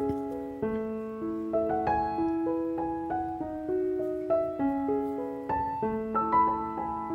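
Background piano music: a slow, gentle melody of single struck notes and soft chords, each note ringing and fading.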